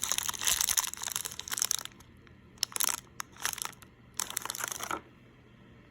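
Packaging from a toy mystery box crinkling and crackling as hands handle and open it: a dense stretch of crinkling, a few separate crackles, then one more short burst of crinkling before it stops about five seconds in.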